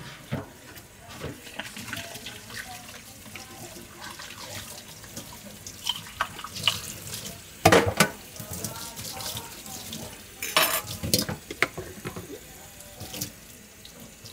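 Kitchen tap running into a stainless steel sink during washing up by hand, with knocks and clatter of items against the sink; two louder knocks stand out around the middle.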